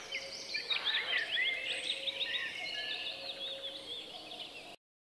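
A chorus of small birds chirping and twittering, many short quick calls overlapping, cutting off abruptly near the end.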